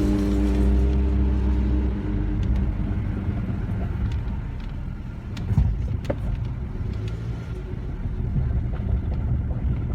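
A Nissan car running with a steady low rumble, a set of engine tones that fade out about two seconds in, and a few sharp knocks about halfway through. This is the grinding noise whose cause the owner is asking about.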